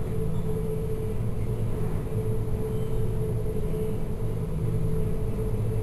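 Containership's engine and machinery droning steadily under way, a low rumble with a constant hum.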